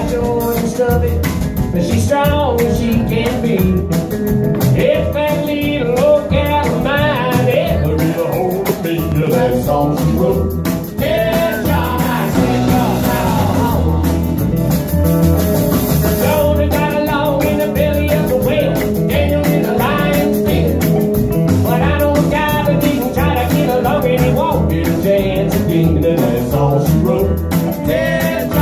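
A live country band playing an instrumental passage on electric guitar, pedal steel guitar and drums, with a steady beat.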